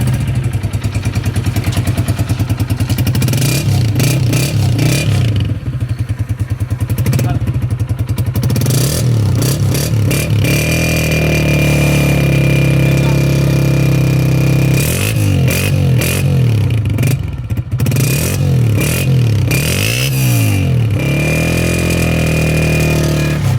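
Honda CG125's single-cylinder four-stroke engine idling, then revved again and again. The engine speed rises and falls with each blip of the throttle and is held high twice for several seconds.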